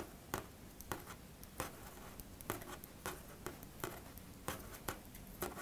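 Aluminum circular knitting needles clicking lightly against each other as stitches are knit, in irregular taps about two a second, with faint yarn rustle.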